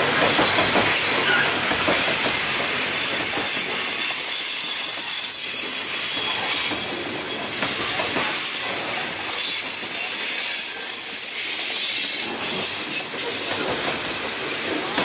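Coal gondola cars of a freight train rolling past on curved track, wheels clicking as the trucks go by. A thin, high wheel-flange squeal comes in about two seconds in and fades out near the end.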